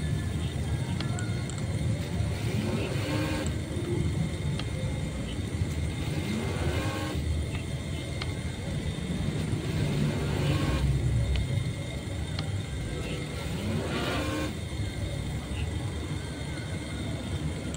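Remote-control boat motor running, revving up in short rising surges every few seconds, each with a burst of rushing noise over a steady low rumble.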